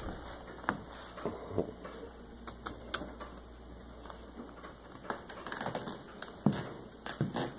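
Stainless steel bowl of dry kibble handled and set into its wire stand beside a steel water bowl: irregular clicks and knocks of metal and kibble, with the loudest knocks near the end.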